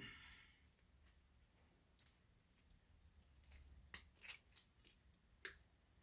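Faint, sharp clicks and snips of small wire clippers cutting wires out of a scrapped light ballast, a few scattered snips with a cluster in the second half.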